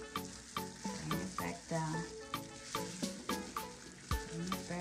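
Wet squelching and rubbing as gloved hands work a thick milk-and-mustard marinade over a whole raw chicken in a ceramic dish, with a dull thump a little after four seconds in. Background music with a steady beat plays throughout.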